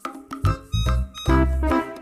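Playful background music with a bouncing bass line and keyboard notes.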